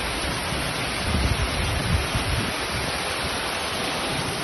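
Heavy rain pouring down onto a flooded street: a steady, dense hiss, with a few low rumbles in the middle.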